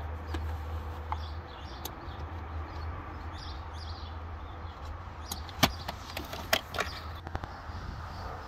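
Handling noise: a few sharp clicks and knocks, the loudest a little past halfway and two more soon after, over a steady low rumble.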